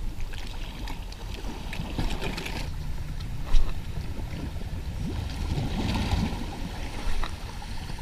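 Shallow sea water sloshing and lapping close by, over a low rumble, with scattered small clicks and one short, sharp, louder sound about three and a half seconds in.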